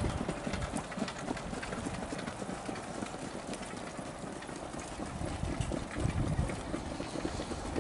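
Hooves of trotting harness horses pulling sulkies striking the track in quick, irregular beats as they pass, over a low, steady rumble that swells about six seconds in.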